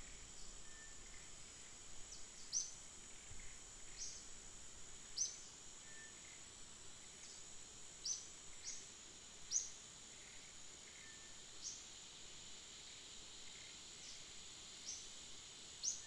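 Outdoor ambience: a steady, high-pitched insect drone with brief high chirps repeating irregularly every one to two seconds.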